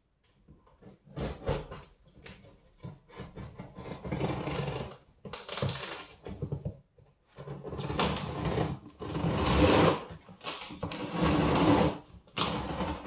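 A large cardboard TV carton being unpacked by hand: a few sharp clicks and snips of scissors on the packing straps, then repeated bouts of cardboard scraping and rustling as the box top is worked open.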